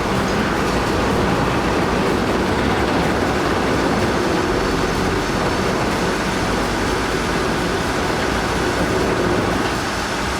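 Heavy diesel machinery running and moving under load: a loud, steady, dense engine rumble with no break.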